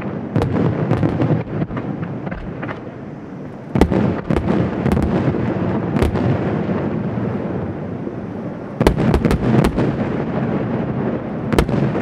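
Large aerial firework shells bursting: a string of sharp booms, with a quick cluster of bangs about nine seconds in, over a continuous rumble of overlapping detonations.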